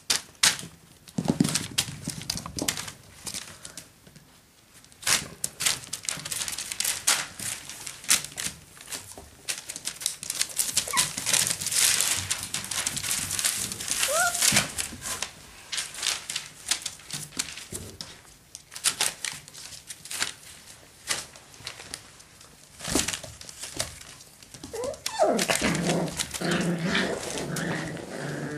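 Parson Russell Terrier puppies at play: newspaper rustling and crinkling with scratchy clicks of paws and a rope toy, a short high squeak about halfway, and small puppy growls and yips near the end as two of them wrestle.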